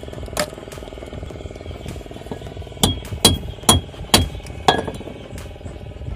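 A metal pipe hammering an oyster shell against a wooden plank to crack it open for its pearl: a single knock about half a second in, then five sharp blows about half a second apart from about three seconds in.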